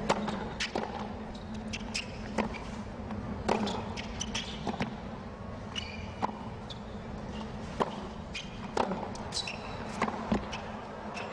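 A tennis rally on a hard court: rackets striking the ball and the ball bouncing, about ten sharp hits spaced roughly a second apart, over a steady low crowd hush.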